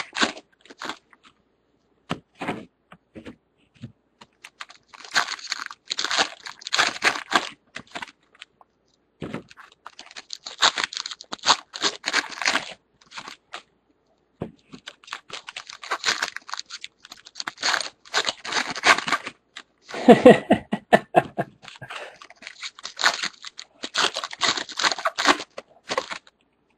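Foil wrappers of baseball card packs being torn open and crinkled by hand, in repeated bursts of crackling with short pauses between.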